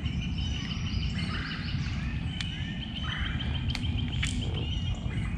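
Birds calling in flooded woodland: two short calls about a second and a half and three and a half seconds in, over a thin steady high trill and a low rumble.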